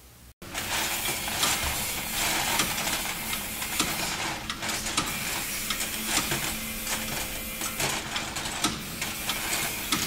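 Continuous mechanical clattering with many small clicks over a steady hiss, starting abruptly less than half a second in.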